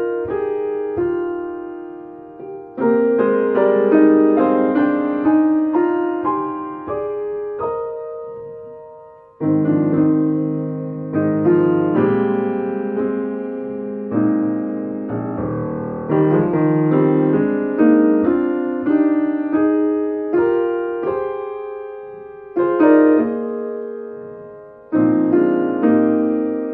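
Piano music: chords and melody notes struck and left to ring and fade, with a brief lull about nine seconds in.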